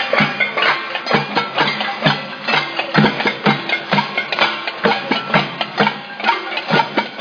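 A group of protesters banging percussion and noisemakers in a dense, rapid, irregular clatter of strikes, with a few held pitched tones underneath.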